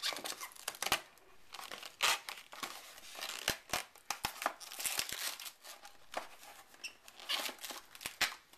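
Cardboard shipping mailer being torn open and handled as a boxed software package is pulled out: irregular tearing, crinkling and rustling, with sharp clicks and crackles throughout.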